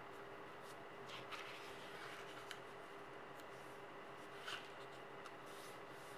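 Faint rustling and crinkling of a sheet of 80 g/m² A4 paper as hands fold it and press a crease flat, with two brief crackles, about a second in and again past the middle.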